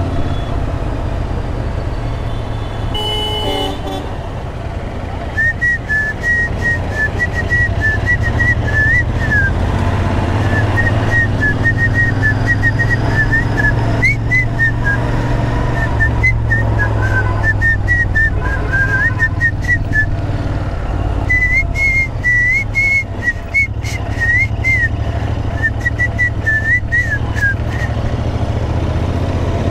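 Royal Enfield Interceptor 650 parallel-twin engine running steadily while riding through traffic, heard close from the rider's position. A short horn toot comes about three seconds in. From about five seconds in, a thin, high whistled tune wavers and glides over the engine in phrases until near the end.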